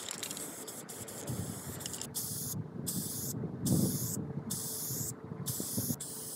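Aerosol spray paint can hissing as paint is sprayed onto a wall, in several bursts with short breaks where the nozzle is let go. Low rumbling sits underneath, loudest about halfway through.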